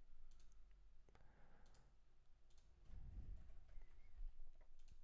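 Faint, scattered clicks of a computer keyboard and mouse as text is typed into a form and a menu option is picked.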